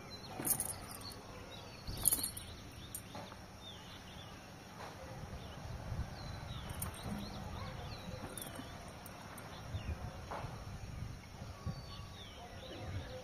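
Outdoor ambience with small birds chirping now and then in short high calls, over a low rumble, and a couple of sharp clicks in the first two seconds.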